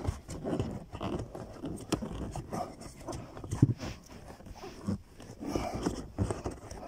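Irregular plastic knocks, clicks and scraping as a cabin air filter is pushed and worked into its housing under the dashboard.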